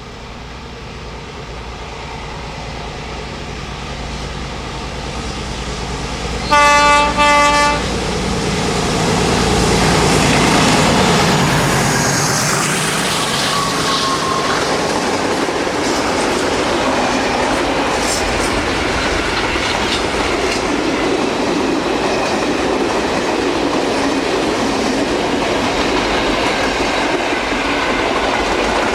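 Freight train approaching and passing: the locomotive gives two short horn blasts as it nears, its engine grows louder and goes by, then the wagons roll past steadily.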